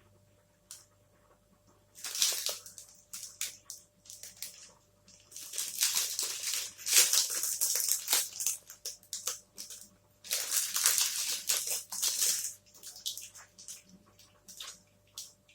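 Close-miked chewing of a protein bar with a yogurt coating: crackly, wet mouth sounds in three bouts, the longest in the middle.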